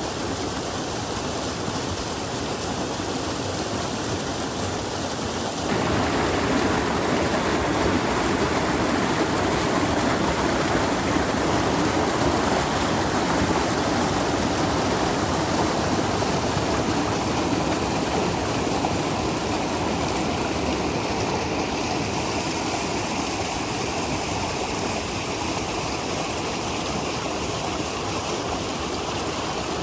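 Steady rush of running water. About six seconds in it cuts abruptly to a louder, fuller rush.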